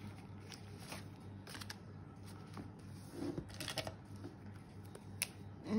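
Ring-binder pages in plastic sleeves and a laminated card being turned and handled: light paper-and-plastic rustling with a few soft clicks.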